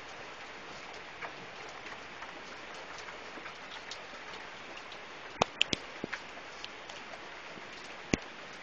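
Steady rain, an even hiss with scattered drip clicks. Several sharp taps stand out, a quick cluster about five and a half to six seconds in and one more near the end.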